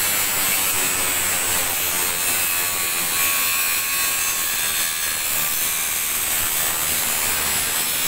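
Handheld electric angle grinder with an abrasive cut-off disc cutting through a steel T-iron roof girder, the disc grinding steadily into the metal without a pause.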